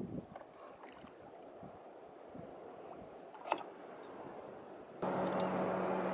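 Small waves lapping and sloshing around a kayak, with one sharp knock about three and a half seconds in. About five seconds in, a louder steady hum with a low drone starts abruptly.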